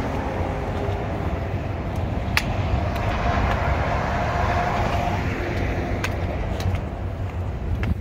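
Steady road traffic noise with a deep rumble, as a vehicle passes by and swells and fades around the middle. A few light clicks fall in between.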